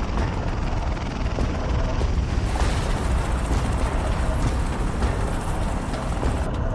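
V-22 Osprey tiltrotor running close by: a steady heavy rumble with rushing rotor noise, the hiss getting brighter for a few seconds in the middle.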